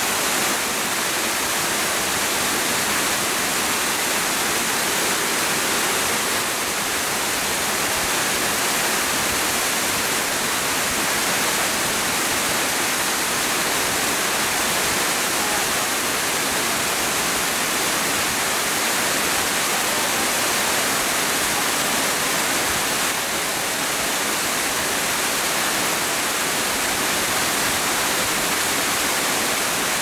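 Waterfall pouring over a rock face: a steady, unbroken rush of falling water, mostly hiss with little bass.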